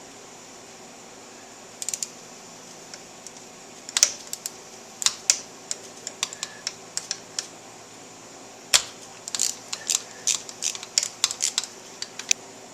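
Ratchet wrench clicking and metal tools clinking in irregular short runs while a bolt is worked loose, with one louder clink in the second half.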